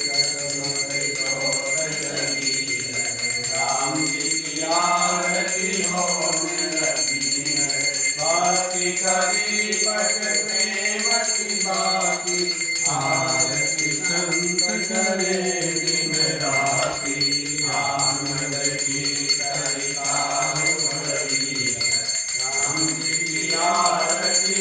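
A small group singing a Hindu aarti hymn together, with a small hand bell rung continuously alongside the singing.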